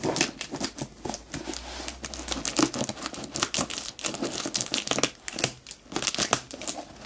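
A key being dragged through packing tape on a cardboard box, the tape and cardboard crackling and tearing in many short, irregular scratchy strokes.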